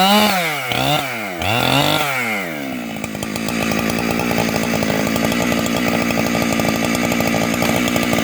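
585XP chainsaw's two-stroke engine blipped three times, its pitch jumping up and falling back, then dropping to a steady idle.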